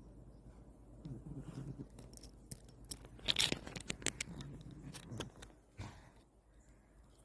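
A sleeping cat snoring: low breaths about a second in and again around five seconds, with a run of sharp clicking and scratchy noises between them, loudest a little after three seconds.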